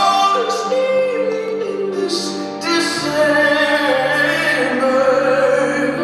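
Music with a woman singing long, held notes; a deeper backing part comes in about halfway through.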